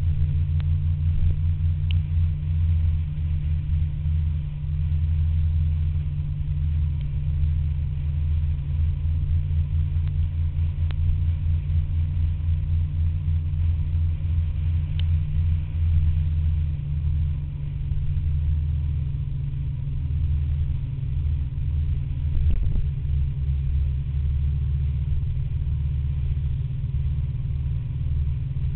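Scooter riding along at steady cruising speed: a continuous low engine drone mixed with wind buffeting on the camera's microphone, which flickers throughout.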